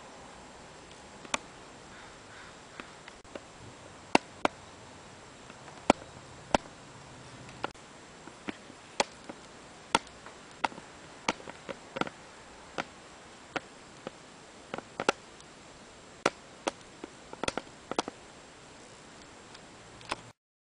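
A series of sharp, short clicks and taps at irregular intervals, some in quick pairs, over a steady faint hiss.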